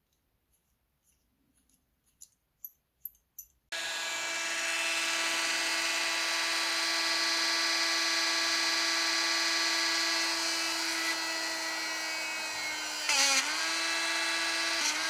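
A few light clicks, then a small hand-held electric mini drill starts about four seconds in and runs with a steady high whine, drilling small rigging holes through a wooden mast-top piece; its pitch sags briefly near the end.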